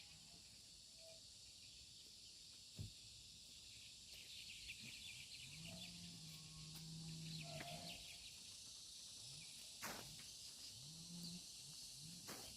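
Faint outdoor ambience: steady high-pitched insect chirring, with a low drawn-out sound for about two seconds near the middle and a few sharp clicks.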